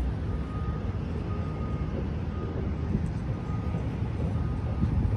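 Road traffic rumbling past, with a faint beep repeating about once a second.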